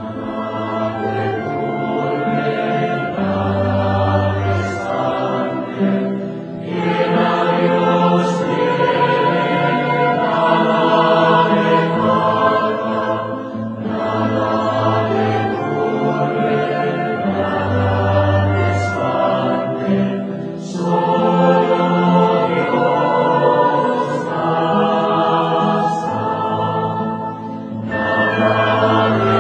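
Background music: a choir singing slow, held phrases over a deep bass line, with a short dip between phrases about every seven seconds.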